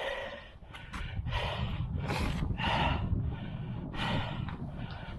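A man breathing hard in repeated gasps and snorts, the strain of hauling a heavy catch up on a magnet-fishing rope, over a low rumble.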